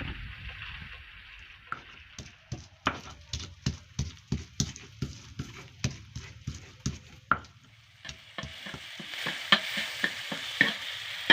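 Footsteps crunching over dry leaf litter, about two to three steps a second. After about eight seconds a steadier crackling hiss with scattered sharp crackles takes over.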